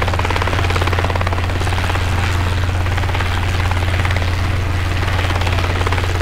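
Steady drone of an aircraft in flight: a deep continuous hum with a fast, even pulsing over it, like engine and rotor noise.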